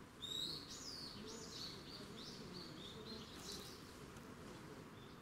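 A small songbird singing a quick run of high, sweeping, warbling notes that starts just after the beginning and lasts about three seconds, then a few fainter notes near the end, over a faint steady outdoor background hum.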